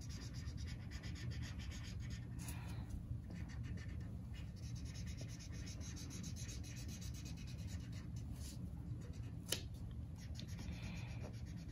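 Felt-tip marker scribbling back and forth on paper to fill in a small shape: a faint, fast scratching of many short strokes, with a few sharper ticks, over a low steady hum.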